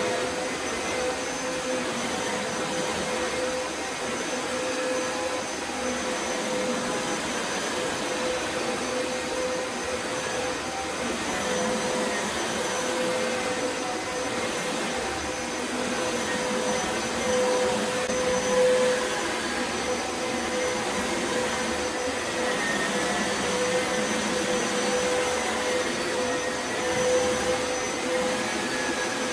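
Upright carpet shampooer's suction motor running steadily, with a constant hum over the airflow noise.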